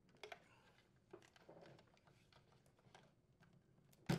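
Faint plastic clicks and rustling as a plastic fan blade is worked off the evaporator fan motor's shaft in its plastic housing, with one sharp knock near the end.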